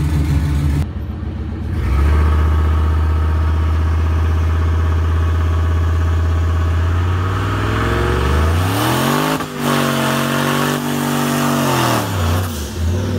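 Turbocharged 4.8-litre V8 of a 2006 Chevy Silverado running at a steady low pitch, then revved up hard and held high for a burnout with the rear tyres spinning. The revs drop back near the end, followed by a short blip.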